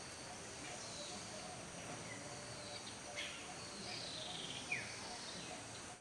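Wild birds calling: a few short, sharp downward-slurred notes and a longer falling note, over a steady high-pitched insect drone.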